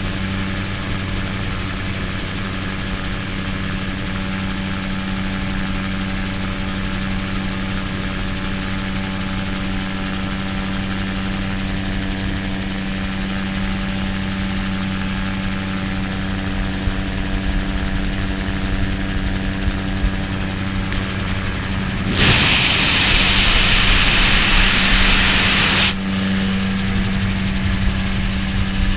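Gyroplane engine and pusher propeller running steadily in low flight, a constant drone with a steady hum, heard from the cockpit. About two-thirds of the way through, a loud rushing hiss covers it for about four seconds, then the drone continues.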